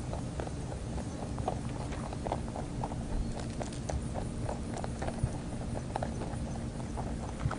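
Rabbits crunching hard feed pellets: quick, crisp, irregular crunches, a few a second, as they chew.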